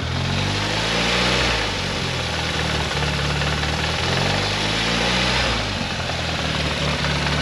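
Turbocharged Nissan GA16DE 1.6-litre twin-cam 16-valve four-cylinder idling, its speed rising and falling a few times. It is running on a new speed-density setup with the MAF sensor deleted and not yet tuned, and has an idle problem that the owner thinks may be a vacuum leak, though he is not sure.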